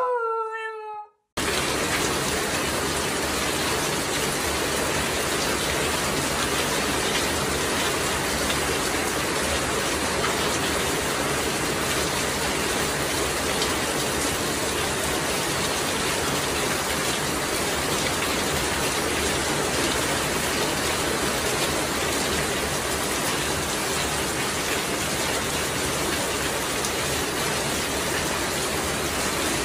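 Heavy rain falling steadily on a concrete yard, an even hiss that starts about a second and a half in. Before it, the end of a dog's howl, falling in pitch.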